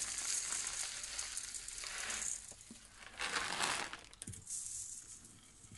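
Granular bonsai soil being poured and shaken from a metal tray onto a potted tree, a gritty rattling in several bursts: a long one at first, a louder one a little past three seconds in, and a shorter one near the end.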